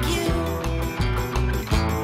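Upbeat pop song between sung lines: a steady beat with a heavy bass and held chords, and no singing.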